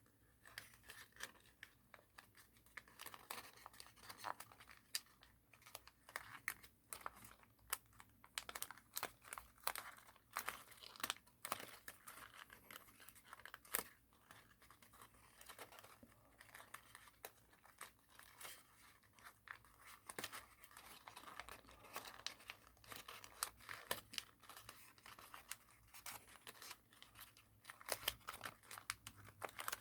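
Thin origami paper being folded, pinched and spread open by hand: a quiet, irregular run of crinkles and small crackles as the creases are worked.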